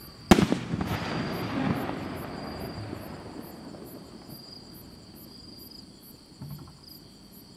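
A 2.5-inch aerial firework shell bursts with one sharp bang about a third of a second in. Its rumbling echo fades over the next two to three seconds, and a faint thump follows near the end. Crickets chirp steadily throughout.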